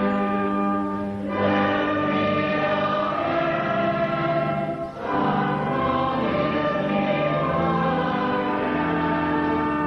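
Church choir singing a hymn in parts with the Compton organ accompanying, sustained chords with short breath breaks between phrases about a second in and again about five seconds in.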